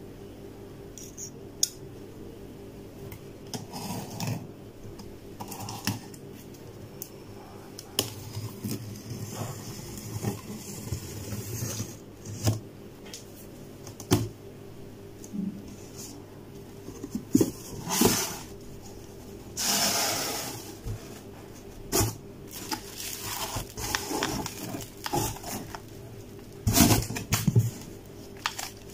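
Handling sounds of opening a cardboard box: taps and clicks from a hobby craft knife, the blade scraping through packing tape with one longer cut about two-thirds through, cardboard flaps knocking, and plastic wrap rustling near the end. A faint steady hum runs underneath.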